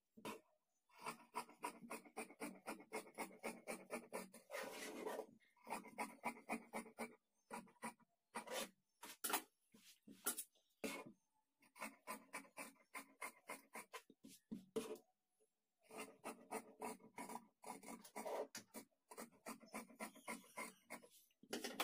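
Tailoring scissors snipping through blouse fabric along chalk-marked outlines, in runs of quick cuts about three a second with short pauses between them.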